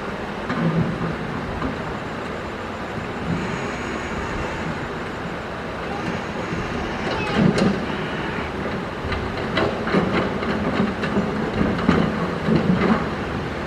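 Caterpillar 320 hydraulic excavator's diesel engine running steadily while rock is scooped and loaded, with a run of sharp knocks and clattering of stone on steel in the second half.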